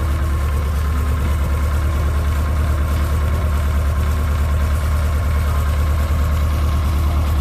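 Naturally aspirated Volkswagen drag-race car engine idling steadily, with a low, evenly pulsing exhaust.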